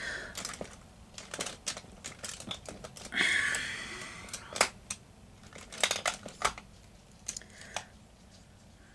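Makeup items being handled on a table: scattered light clicks and taps of small plastic cases and tools, with a brief louder swish about three seconds in.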